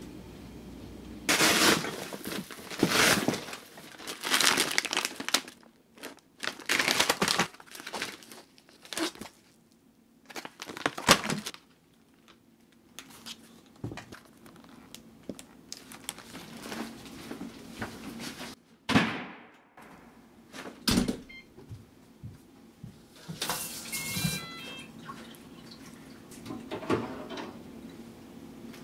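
Groceries unpacked from a foil-lined insulated delivery bag: spurts of crinkling foil and plastic packaging, with sharp knocks as items are set down.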